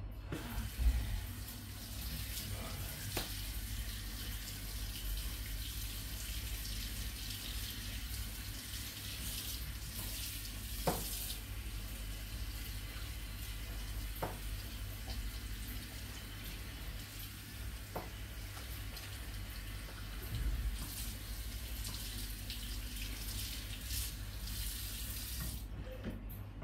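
Water spraying from a pull-out faucet sprayer onto a client's feet and into the basin below, a steady hiss with a few light knocks, shut off about a second before the end.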